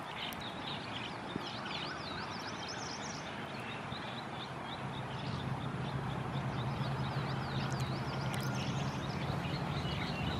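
Many short, quick high bird chirps, repeated over a steady outdoor background hiss. A low steady hum comes in about halfway.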